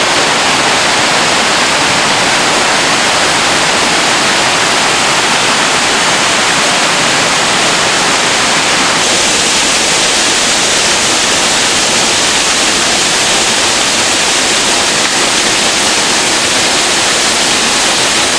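Waterfall on a forest creek: a loud, steady rush of falling water splashing onto rock and into a pool. The sound shifts slightly about halfway through.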